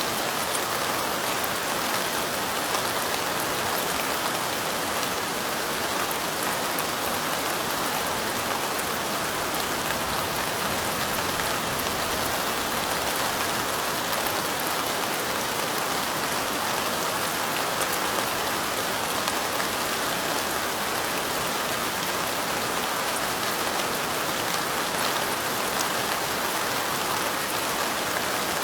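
Light rain falling steadily: an even, unbroken hiss of many drops, with faint fine ticks of single drops over it.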